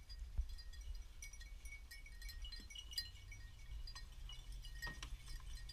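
Beagles' collars jingling faintly as the dogs move at the open dog box: scattered light metallic tinkles at the same few high pitches, with a couple of sharp clicks. A low rumble of wind on the microphone lies underneath.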